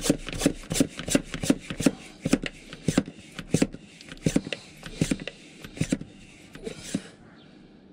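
Hand-pumped vacuum oil extractor being worked by its plunger handle, quick rasping strokes about four a second that slow and stop about seven seconds in. The pump is pulling a vacuum in its bowl to draw the last of the old engine oil out of the sump.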